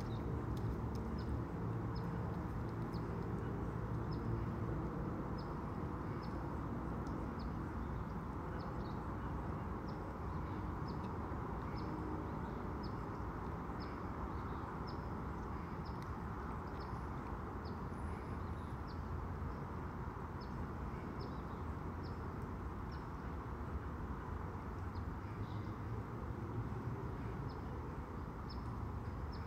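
Steady outdoor background with a low rumble, over which a short high chirp repeats about once a second.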